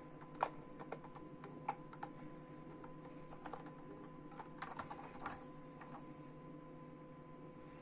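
Irregular small clicks and taps of hard plastic as a LEGO bus model is handled and its hinged doors are swung open. The sharpest click comes about half a second in, and a quick cluster of clicks follows at around five seconds.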